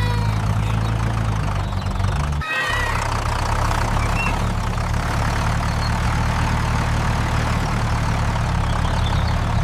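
Tractor engine idling steadily, with a short break about two and a half seconds in.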